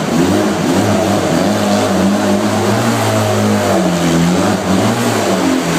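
Barossa 250 cc Apache engine running, its revs wavering, dipping and picking up again around the middle and near the end.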